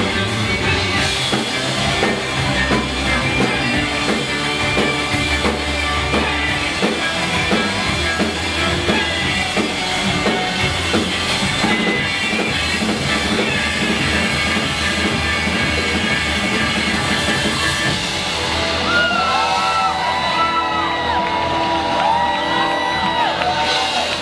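Live rock band playing loud amplified music with drums and bass in a large hall. In the last few seconds voices shout and whoop over it.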